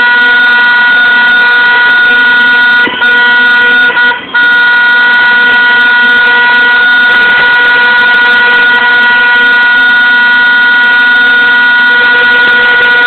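Horns blaring in one loud, continuous held tone, broken only by two brief dips about three and four seconds in.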